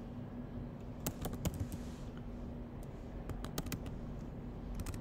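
Computer keyboard being typed on: two short runs of keystrokes as a word is entered.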